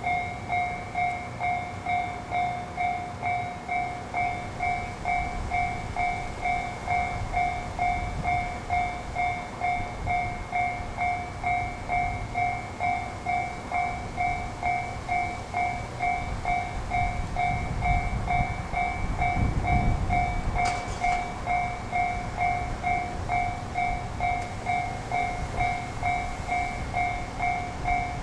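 Railway level-crossing warning bell ringing steadily, about three strikes every two seconds, while it is closed for a train. Under it a diesel railcar's low rumble swells, loudest around twenty seconds in.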